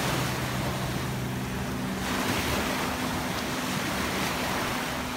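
Surf breaking and washing up onto a sandy beach, a steady rush of waves, with a low steady hum underneath.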